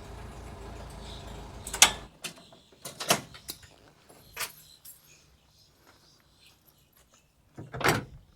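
A steady low motor-like hum that cuts off suddenly about two seconds in, then a few sharp knocks and clunks of hard objects being handled, the loudest near the end.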